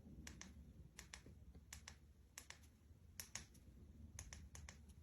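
Faint, irregular small clicks, some in quick pairs: buttons pressed on the gaming desk's LED light controller, switching through lighting modes.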